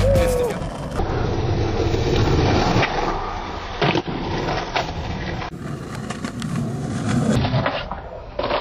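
Skateboard wheels rolling over asphalt and concrete with a steady rumble, broken by sharp clacks of the board about three and four seconds in.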